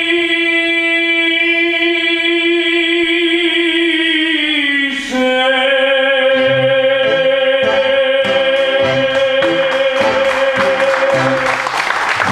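Closing bars of a tango: a male singer holds long final notes, shifting to a new sustained note about five seconds in, over bandoneon and nylon-string guitar, with rhythmic guitar chords joining in the second half. Applause breaks out at the very end as the song finishes.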